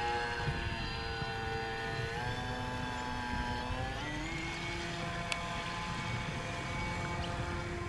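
Radio-controlled model boat motor running on the water, a whine whose pitch steps down about two seconds in and glides back up around four seconds in.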